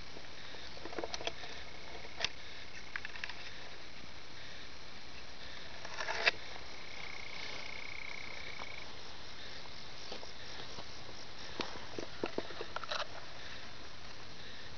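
Red-bellied toads (Melanophryniscus aff. tumifrons) calling: a long, high, even trill that runs through the first couple of seconds and comes again for about two seconds midway, over a steady hiss. Scattered knocks and rustles come and go, the loudest about six seconds in and a cluster near the end.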